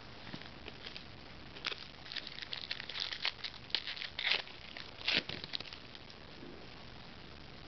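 Foil trading-card pack being torn open and crinkled: a run of sharp crackles from about two seconds in until about six seconds in, loudest near the end.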